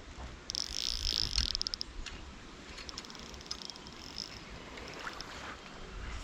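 Fly reel drag buzzing in quick clicks as a strong brown trout pulls line off it, in two runs, a longer one starting about half a second in and a weaker one around the middle. Low stream water runs underneath.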